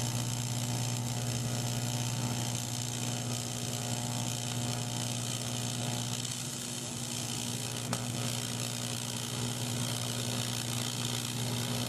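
AC TIG welding arc on thin aluminum from a Lincoln Precision TIG 185, buzzing steadily with a hiss over it as a bead is run with filler rod.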